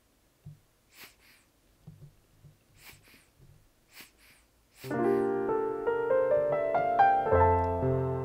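A few faint soft taps and brushing sounds, then about five seconds in a piano piece starts and plays on.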